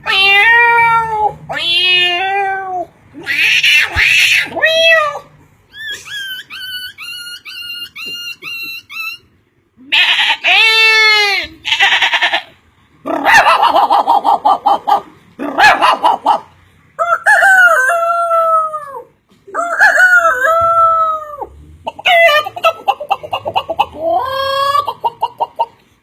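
A man's voice imitating a string of animal and bird calls, one after another with short pauses, including rooster-like crowing and a run of quick, high, repeated bird-like calls.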